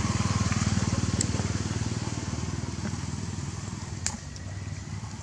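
A small engine running with a fast, even low pulse, gradually growing fainter, with a sharp click about four seconds in.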